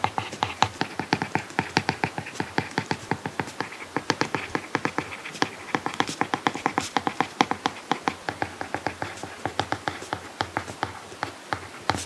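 Apple Pencil tip tapping on an iPad Pro screen fitted with a paper-like matte protector during handwriting: a quick, irregular run of light clicks, several a second.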